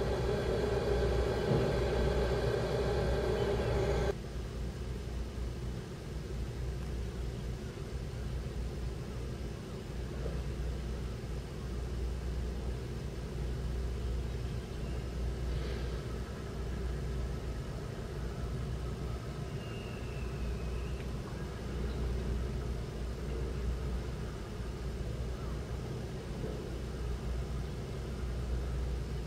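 Heavy diesel engines running. A loud, steady engine hum for about four seconds drops abruptly to a quieter, steady low rumble.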